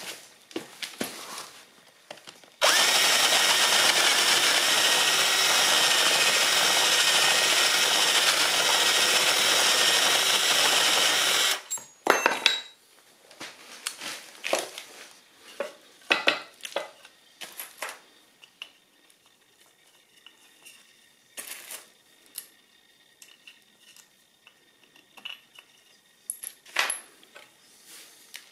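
Cordless drill with a spade bit boring a hole into a timber block, running steadily for about nine seconds, starting a few seconds in and stopping abruptly. Afterwards, scattered short knocks and clicks.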